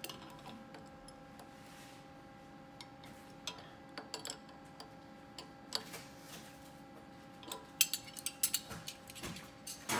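Adjustable wrench clicking and clinking on a metal nut as the 9/16 lock nut on a material valve's linkage eye bolt is tightened, with a quick run of sharper clicks near the end. A faint steady hum runs underneath.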